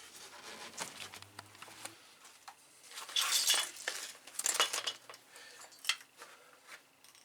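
Metal clinks and rattles, with two short bursts of scraping noise about three and four and a half seconds in, as tools and metal are handled.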